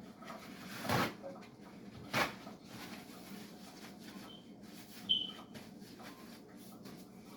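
Kitchen handling noises: a few soft knocks about one, two and five seconds in, the last with a short high chirp.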